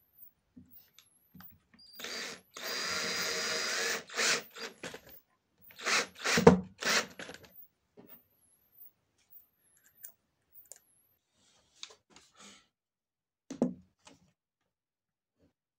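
A power drill runs steadily for about a second and a half, then gives several short loud bursts, one with a low thump. A single knock comes near the end.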